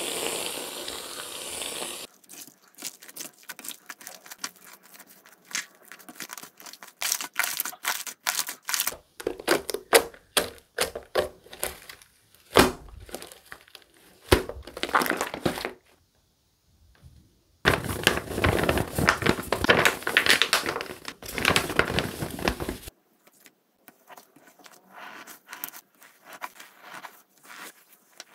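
Aerosol shaving foam hissing out of a can for about two seconds, then soft pink slime being mixed and squeezed by hand with sticky clicks, pops and crackles in irregular bursts. A denser stretch of the same noise comes in the middle, and the crackles are quieter near the end.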